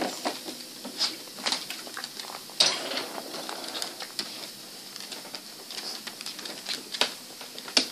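Irregular clicking and rustling from the recording phone being handled, with a few sharper clicks, the loudest about a third of the way in and another near the end.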